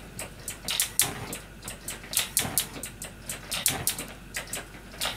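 Irregular clattering and knocking of kitchen utensils and cookware being handled: sharp clicks and knocks, a few a second.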